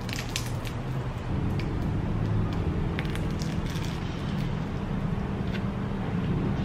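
Crusty bread roll of a sandwich crunching as it is torn and bitten: a few crisp crackles, most in the first second and again about three seconds in. Under them a steady low hum sets in about a second in and is the loudest sound.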